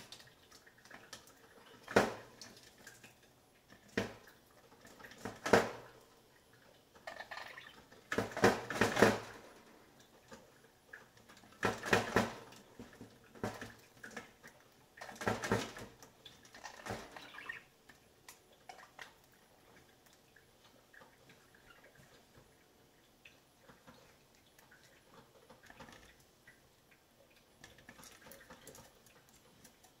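Pet budgies pecking and rummaging at a plastic food dish and seed, making irregular sharp clicks and clatters, some in quick clusters. They are loudest in the first half and grow sparse and faint near the end.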